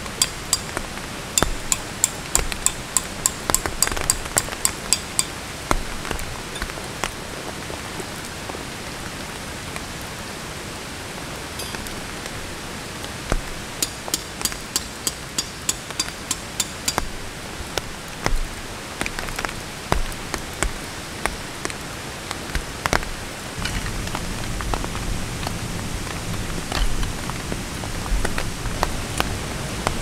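Steel tent pegs hammered into gravel in two quick runs of ringing metal strikes, about four a second, with scattered single strikes later. Steady rain hiss lies underneath, and a low hum joins near the end.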